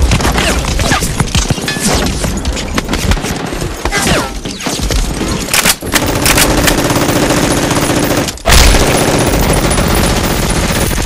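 Gunfire sound effects: dense, rapid bursts of machine-gun and rifle fire, broken by a sudden brief drop about eight seconds in.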